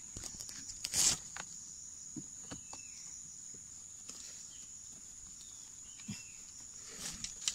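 Steady, high insect drone, with brief rustling and crackling of dry palm sheaths being handled: loudest about a second in and again near the end, with scattered faint clicks between.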